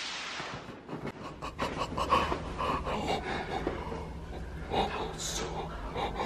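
Stifled, breathy laughter and panting in short irregular bursts, after a steady rustling hiss stops about a second in.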